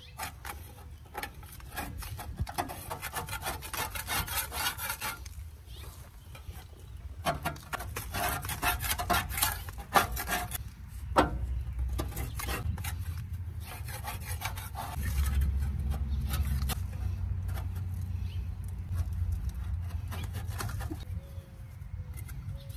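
Metal scraper blades scraping caked-on dried grass off the underside of a riding mower's steel deck around a blade spindle. The scraping comes in quick, repeated short strokes, in runs of a few seconds with short pauses between them.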